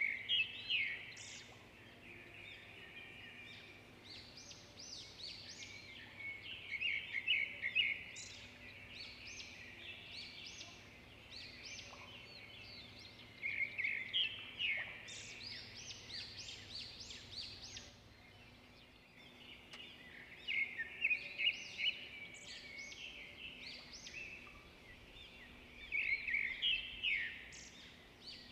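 A bird singing in repeated bursts of quick chirps, about every six or seven seconds. Under it is a faint steady low hum that stops about two-thirds of the way through.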